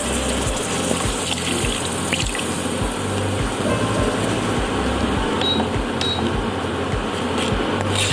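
Background music with a steady bass beat over a constant hiss.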